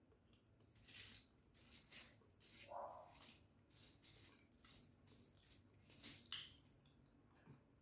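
Aluminium foil crinkling and rustling in a run of short, uneven bursts as fingers pick food off it.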